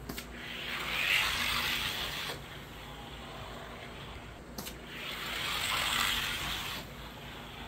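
Die-cast Stiletto toy car making two warm-up runs down a gravity race track: each run is a rolling hiss of small wheels on the track that builds and fades over about two seconds, with a sharp click between the two runs.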